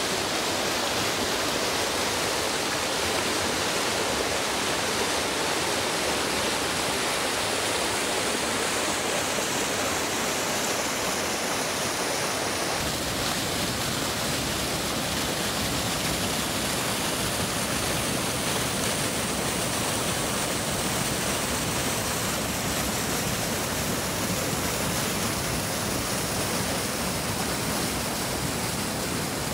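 Rushing water of a small waterfall and rapids pouring over rocks, a steady full rush; about thirteen seconds in it turns deeper, with more low rumble.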